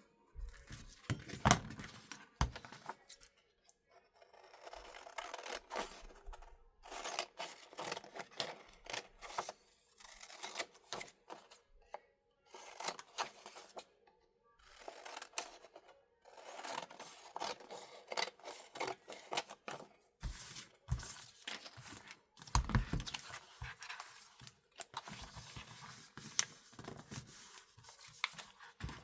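Paper being worked with a bookbinding tool: repeated scraping, rustling strokes lasting a second or two with short pauses between, and a few sharp taps, the loudest one about a second and a half in.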